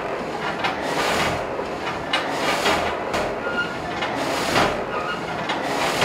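Wind-driven sawmill machinery running: the reciprocating saw frame works up and down with a rhythmic rasping clatter about once a second.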